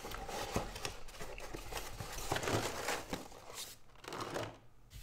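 Close-miked crinkling and rustling with many small clicks and crunches from pizza being handled and eaten, dying down near the end.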